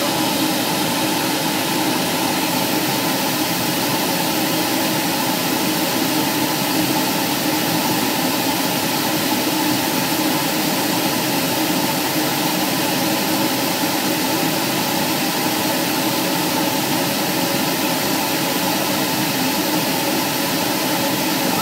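Light aircraft's engine running steadily, heard from inside the cabin as a constant drone with rushing air noise and no change in pitch.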